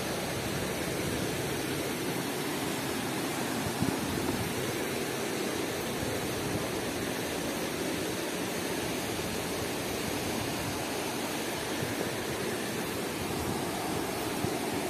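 Steady rushing of river water flowing.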